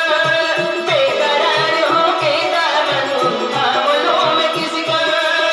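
Live stage music over a PA: a singing voice with a keyboard backing and a steady drum beat.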